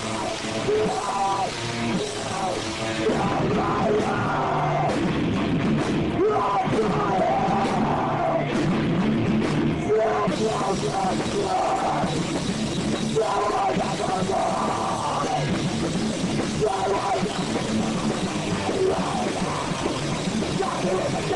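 Live rock band playing loud through amplifiers, electric guitar with a full band behind it.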